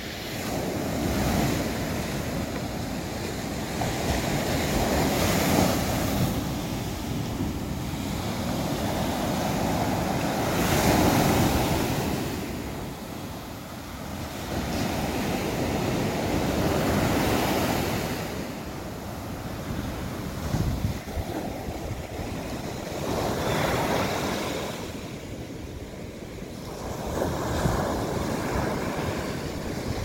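Surf breaking on a sandy beach, waves washing in and drawing back in slow surges every four to six seconds, with wind on the microphone.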